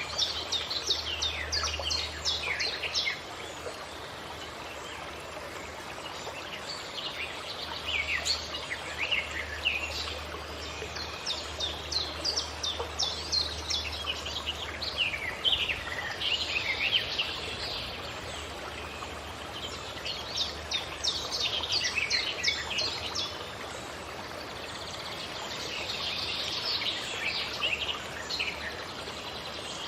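Songbirds singing in about five bursts of quick, downward-sweeping chirps, each a few seconds long, over a steady background hiss.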